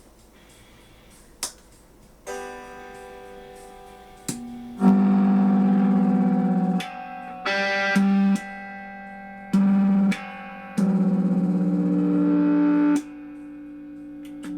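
Hofner 459 VTZ electric guitar played through an amplifier, notes and chords ringing. The volume jumps up and down abruptly several times while the notes keep sounding, as the repaired treble boost is switched in and out, and it now works.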